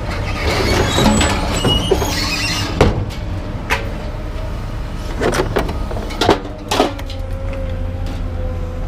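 A vehicle engine rumbling steadily, with several sharp knocks and clunks over it.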